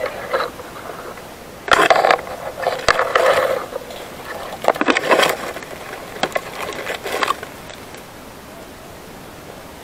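Leaves, twigs and brush rustling and crackling in irregular bursts for several seconds as someone pushes through thick undergrowth, over a steady hiss.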